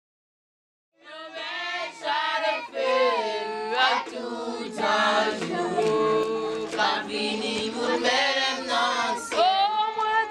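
A group of girls and young women singing together, their voices only, starting about a second in.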